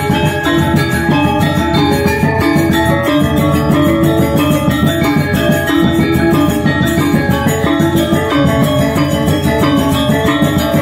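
Balinese gamelan gong ensemble playing: bronze metallophones struck with hammers in dense, rapid ringing strokes, steady and loud throughout.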